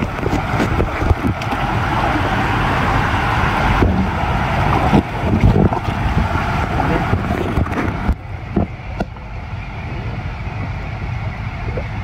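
Water rushing and an inflatable tube rumbling and knocking down an enclosed water slide, heard through a phone in a waterproof pouch with wind on the microphone. The rush drops off about eight seconds in.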